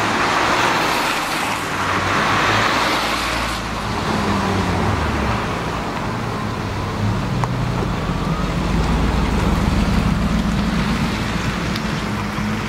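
Mercedes-Benz SLR McLaren's supercharged 5.4-litre V8 running as the car drives past and pulls away, its engine note rising and falling with the revs and climbing near the end as it accelerates. A loud hiss of road noise fills the first few seconds and then cuts off.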